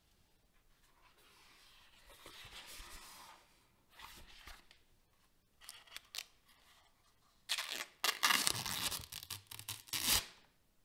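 Unboxing packaging being handled and pulled apart: soft rustling, a short burst about four seconds in and a few sharp clicks around six seconds. Near the end comes a louder stretch of tearing crinkle lasting about two and a half seconds.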